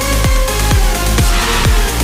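Background electronic dance music with a steady kick drum, about two beats a second, and a brief hiss swell in the middle.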